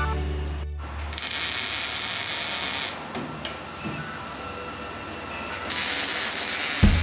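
Welding arc sizzling in two spells as an exhaust pipe is welded up under the truck: for about two seconds from a second in, and again from about six seconds. Background music fades out at the start and a drum beat comes in at the very end.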